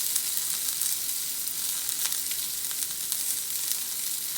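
Prosciutto-wrapped asparagus sizzling in a frying pan: a steady hiss with scattered crackles and pops.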